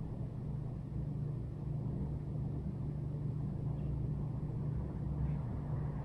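Steady low background rumble and hum, with no distinct events.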